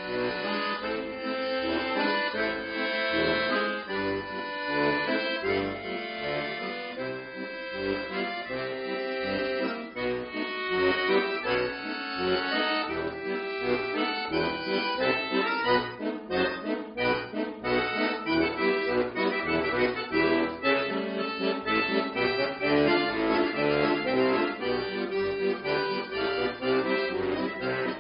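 Chromatic button accordion played solo: quick melodic runs and chords in the right hand over short, regularly repeated bass notes, the note runs getting faster in the second half.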